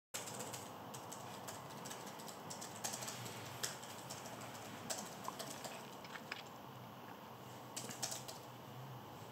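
Hands handling a closed laptop, giving scattered light clicks and taps of fingers on its casing over a faint steady hiss.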